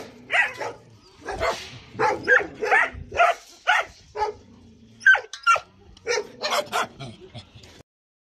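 Dogs barking in a string of short, separate barks, stopping abruptly near the end.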